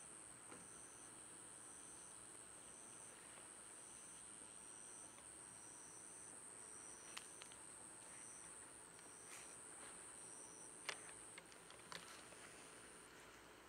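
Insects singing faintly: one keeps up a steady, very high trill while another chirps about once a second. A few sharp clicks come in the second half, the loudest near the end.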